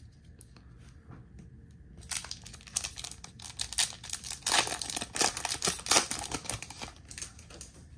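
The plastic wrapper of a Topps baseball card hobby pack being torn open and crinkled by hand. A dense run of crackles starts about two seconds in and lasts several seconds.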